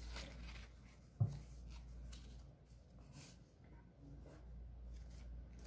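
Faint rustling and flicking of a small stack of Philippine 100-peso banknotes being handled and counted by hand, with a brief thump about a second in.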